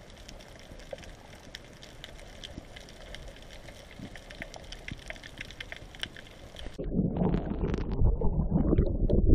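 Underwater hiss with faint scattered crackling clicks. About seven seconds in it switches abruptly to loud, uneven sloshing and gurgling of water churning around the camera just below the surface.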